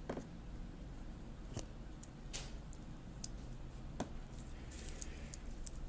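A Kensington combination cable lock and its coiled steel cable being handled: a few separate light clicks and rattles, then a quick run of small ticks near the end.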